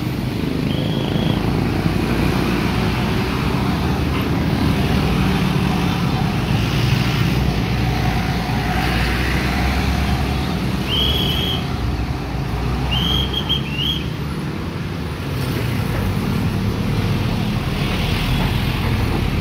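Busy street traffic heard from a bicycle riding in it: motorcycle, truck and car engines running and passing in a steady rumble, with a few short high-pitched squeaks about a second in and again past the middle.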